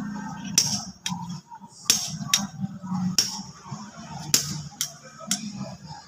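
Sharp clicks or knocks at uneven intervals, roughly one every half second to a second, over faint low voices.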